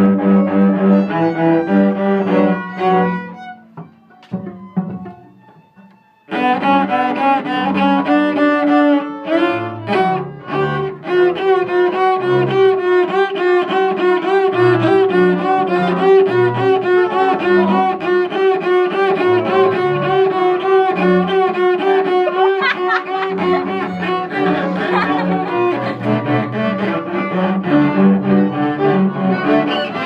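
Cello playing a piece together with another bowed string instrument. The playing trails off about three seconds in, stops briefly, and comes back in abruptly at about six seconds with sustained notes.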